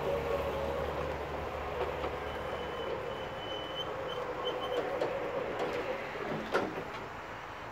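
JLG 2030ES battery-electric scissor lift driving and steering, its electric motors running with a steady whine. A higher whistle joins for a couple of seconds in the middle, and there is a sharp click near the end.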